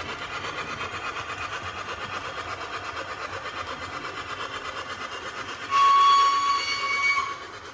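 Sound-fitted model steam locomotive's DCC decoder playing a steady, rhythmic chuff through its small speaker, then a loud whistle blast of about a second and a half near the end.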